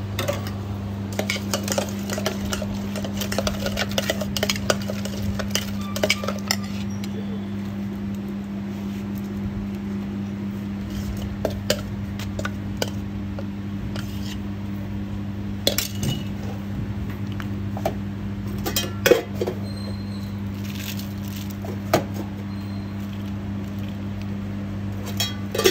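Steel spoons clinking and scraping against a stainless steel bowl while a food mixture is stirred, rapid and busy for the first several seconds, then only occasional single clinks. A steady low hum runs underneath.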